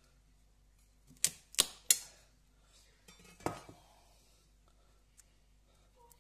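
Kitchen knife chopping baked chestnuts in their shells on a wooden cutting board: three sharp knocks in quick succession about a second in, then a duller one near the middle.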